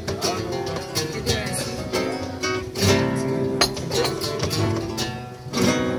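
Flamenco guitar played solo: plucked melodic runs broken by several sharp strummed chords.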